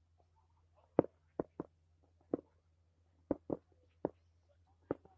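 About eight short, sharp knocks or pops at irregular intervals, over a faint steady low hum.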